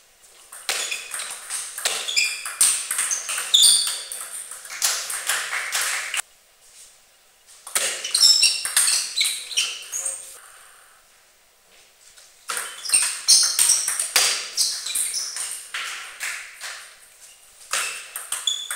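Table tennis rallies: the ball clicks rapidly back and forth off the bats and the table, with short high pings. Three rallies, with short pauses between them, about six seconds in and again about ten seconds in.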